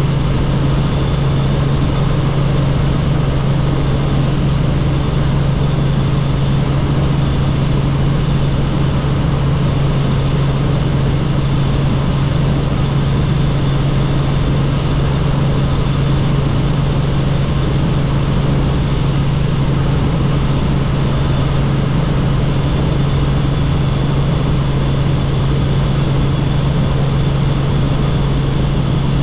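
Helicopter in flight: loud, steady engine and rotor drone with a constant low hum that does not change.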